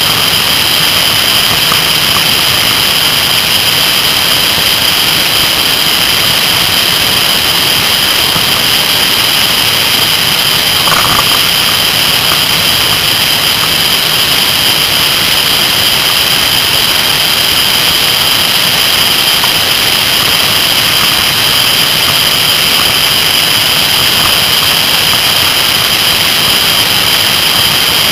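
Kawasaki ZR-7S air-cooled inline-four motorcycle running at speed, its engine mixed into a loud, steady rush of wind and road noise on a bike-mounted microphone.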